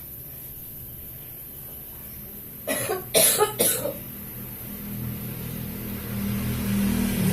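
A person coughing: a short fit of three or four coughs in quick succession about three seconds in. A low hum grows louder near the end.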